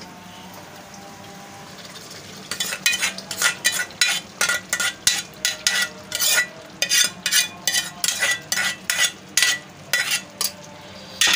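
A slotted metal spoon stirring half-cooked whole masoor lentils into frying tomato masala in a metal pan. There is a low sizzle at first; from about two seconds in, the spoon scrapes and clinks against the pan a few times a second.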